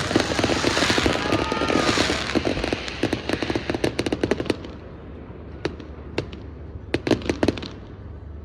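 Aerial fireworks crackling in a dense, rapid string of cracks that thins after about four and a half seconds to a few scattered pops and a short cluster near the end, then dies away.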